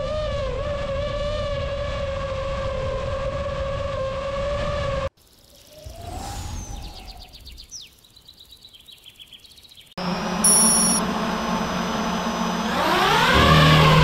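A loud, steady, slightly wavering whine with a clear pitch, cut off abruptly after about five seconds. Then a logo sound effect plays: a short rising glide and a run of quick ticking tones. About ten seconds in, intro music starts, with high sustained tones and then swooping, gliding synth tones.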